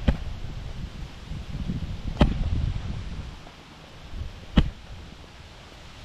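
Hiking staff striking the ground with three sharp knocks, a little over two seconds apart, over a low rumble of wind on the microphone.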